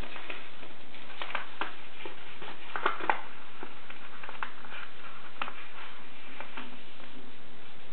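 Sheet of paper rustling and being creased by hands, with scattered crisp crackles, the loudest cluster about three seconds in, over a steady hiss.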